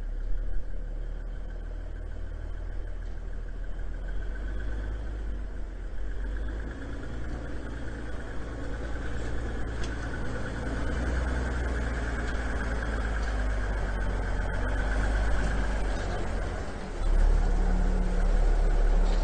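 A 1983 International Paystar 5000 dump truck's engine running steadily, getting louder about seventeen seconds in.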